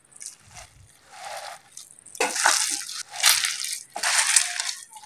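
Hands kneading and squeezing a raw beef mince, potato and onion kebab mixture, a wet crushing sound in repeated strokes about once a second, louder in the second half.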